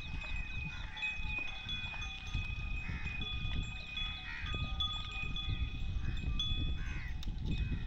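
Livestock bells ringing in long steady tones, with repeated animal calls, over a low rumble.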